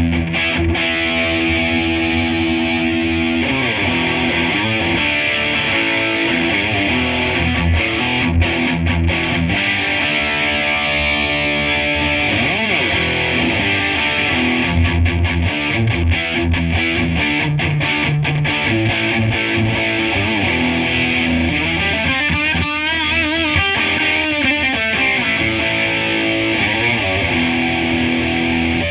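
Gibson Les Paul electric guitar played through a Fender Blackface-style tube amp: held chords and single-note lines with string bends and vibrato. The playing cuts off at the very end.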